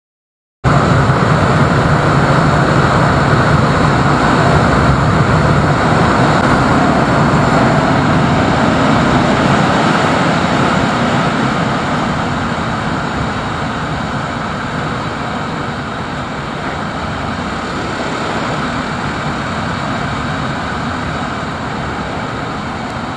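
Yezdi Scrambler motorcycle riding fast, heard from the handlebars: heavy wind rush over the microphone mixed with the engine running. It starts after a brief gap of silence and gradually quietens as the bike slows from its top speed of about 136 km/h.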